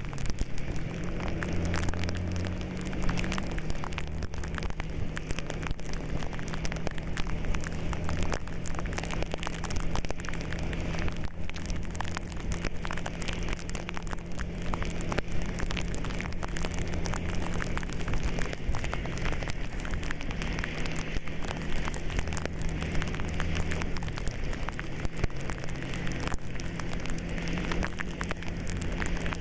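Rain crackling steadily on the vehicle's windshield and roof, heard from inside the cab, over the steady low hum of the vehicle's engine and tyres on the wet road.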